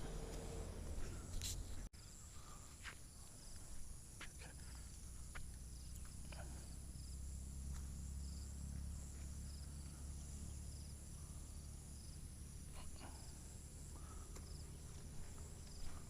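Faint outdoor ambience of insects trilling steadily on a high note, with low wind rumble on the microphone and a few scattered light clicks.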